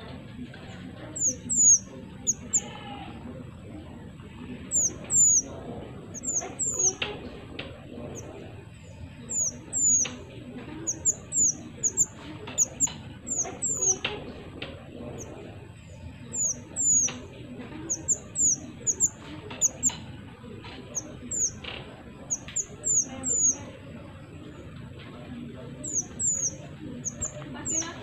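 Mantenan songbird calling: short, high, downward-sliding chirps in quick runs of two to four, repeated every second or two, over a low background noise and a faint steady high tone.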